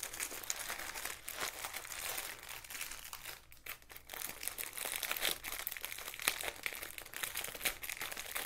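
Plastic-wrapped packet of diamond-painting drill bags crinkling as it is handled in the hands, with a brief lull about three and a half seconds in.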